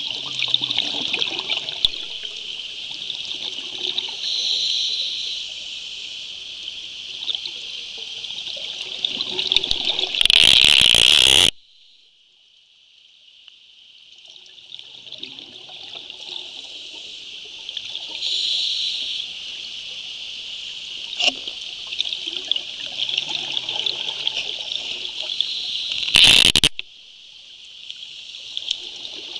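Underwater scuba ambience: a steady high hiss, broken twice by a loud rush of a diver's exhaled bubbles from a regulator, once about ten seconds in and once near the end.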